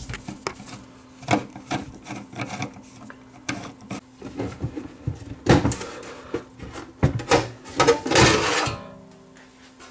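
Screwdriver clicking and scraping as screws come out of an NAD 6155 cassette deck's sheet-metal case, then a longer scraping rush about eight seconds in as the top cover slides off. A faint steady hum runs underneath.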